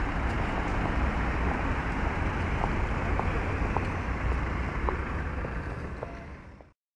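Outdoor city street noise: a steady low rumble of traffic with wind buffeting the microphone. A few brief high tones sound in the middle, and the sound fades out near the end.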